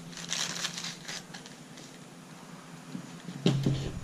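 Crinkling of a plastic bag holding spare rubber drive belts as it is handled, then a few knocks and handling noises about three and a half seconds in as the rock tumbler's metal base is picked up.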